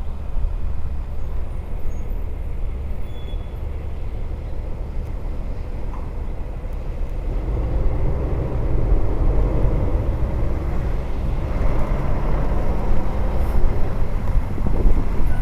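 Steady low vehicle rumble with wind on the microphone, growing louder from about eight seconds in as something approaches.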